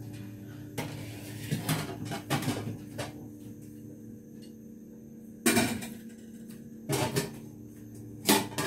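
Kitchen utensils being handled: a series of separate knocks and clatters of pots and dishes, the loudest a little past the middle, over a steady low hum.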